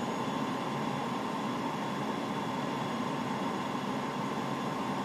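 Steady airliner flight-deck noise during a descending approach: a constant rush of air and fan hum with a faint steady high whine.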